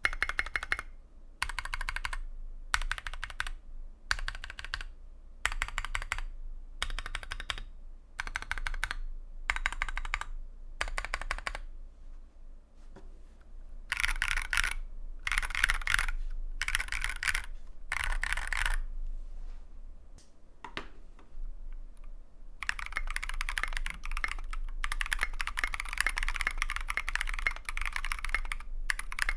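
Custom mechanical keyboard (KBDFans Tofu TFV2 with brass plate, lubed NK Blueberry tactile switches, lubed Durock stabilizers and SA PBT keycaps): its modifier keys are pressed in quick clusters about once a second, then after a short lull, continuous typing on a desk mat starts about two-thirds of the way in.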